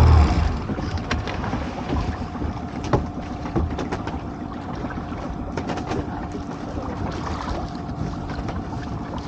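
Small fishing boat at sea with its motor ticking over steadily under wind on the microphone and water noise, and a few sharp knocks in the first few seconds.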